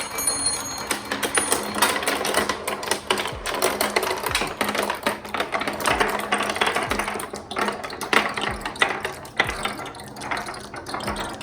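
A pack of marbles rolling and clattering down a marble run track: a dense, irregular stream of small clicks and knocks as they hit the track and each other.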